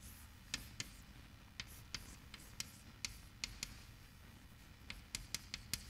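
Chalk tapping on a blackboard as a diagram is drawn: a dozen or so faint, short clicks at irregular intervals, coming closer together near the end.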